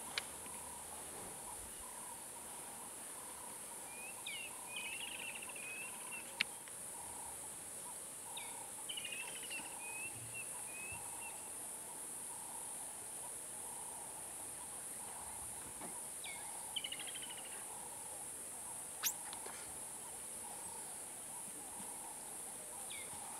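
Bush ambience: a steady high insect buzz, with a short chirping call that comes four times, every few seconds. Two sharp clicks, about six seconds in and again near nineteen seconds.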